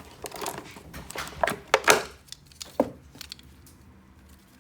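Packaging being handled and opened by hand: irregular clicks, knocks and rustles of box and plastic. It goes quieter after about three seconds.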